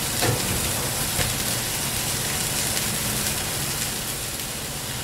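Onion, carrot, garlic and shredded fresh cabbage sizzling as they fry in hot oil in a heavy-bottomed pot, over a steady low hum. A couple of light knocks come in the first second or so.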